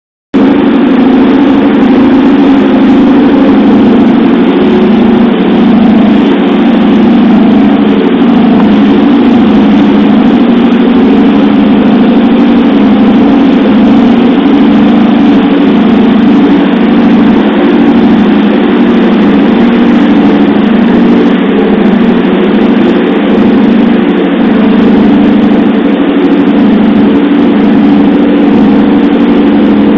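Boat engine running steadily while under way, loud and close, under a steady rush of wind and water.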